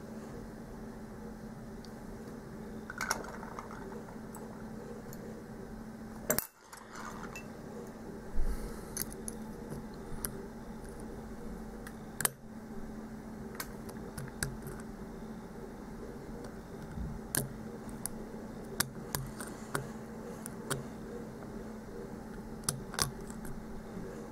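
Lock picking: a hook pick and tension wrench working the pins of a security-pinned lock, giving scattered light metallic clicks and scrapes over a steady low hum.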